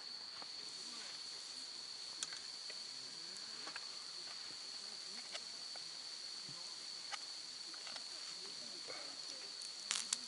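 Autumn crickets chirping in a steady, continuous high-pitched trill, with a few sharp clicks scattered through it and a louder cluster of clicks near the end.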